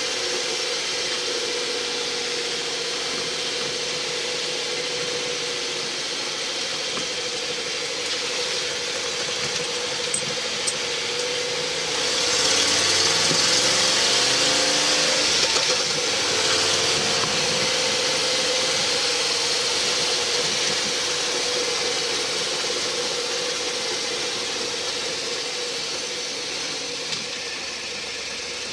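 A 1970 Boss 302 small-block V8 running in a '76 Ford F100 pickup as it drives, heard from inside the cab along with tyre and wind noise. About twelve seconds in the engine note rises and grows louder for a few seconds, then settles back.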